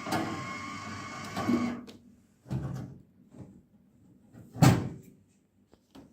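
Sanitary napkin vending machine's dispensing motor whirring and stopping about two seconds in, then a few knocks and one louder bang about a second and a half before the end.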